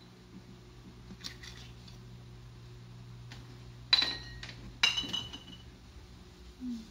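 Kitchenware being handled: a few light clinks, then two sharp clinks of metal or glass about a second apart, each ringing briefly, over a steady low hum.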